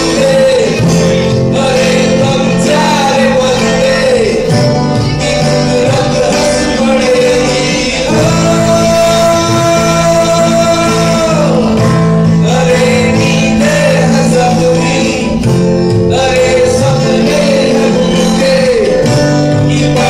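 Live band with a male lead singer, guitars and tabla playing a slow song; the singer holds one long note about eight seconds in for some three seconds before it falls away.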